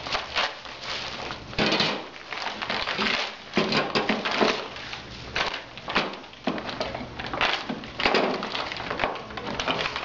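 Rustling and clattering of cabinet hardware packages (turntable parts, hinges, screws) being handled and sorted, in irregular bursts.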